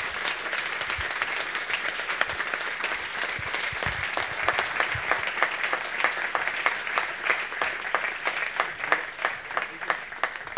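Audience applauding: many people clapping together, the clapping thinning out toward the end.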